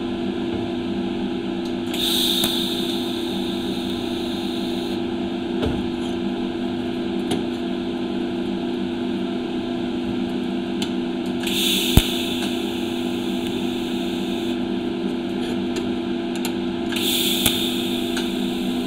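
TIG welder tack-welding thin stainless steel exhaust tube sections held in a jig: three separate arcs, each a steady hiss lasting two to three seconds, beginning about two, eleven and seventeen seconds in. A steady electrical hum runs underneath, with a single sharp tap about twelve seconds in.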